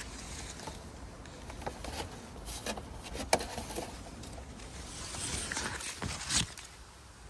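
Cherimoya leaves and stiff black plastic fruit covers rustling and scraping as a hand reaches in among the branches to handle the fruit, with scattered clicks and one sharp snap about a third of the way through.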